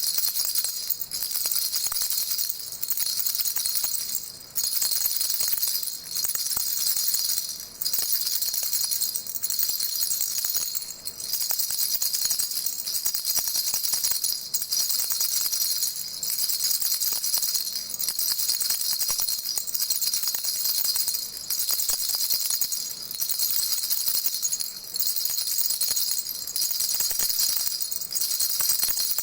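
Baby rattle shaken on and on, a bright high jingling like small bells, with a short dip in the shaking about every second and a half.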